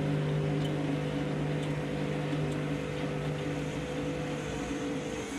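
Washing machine's drum motor running steadily in its final spin cycle, a hum made of several even tones over a mechanical rush. The lowest tone drops out near the end.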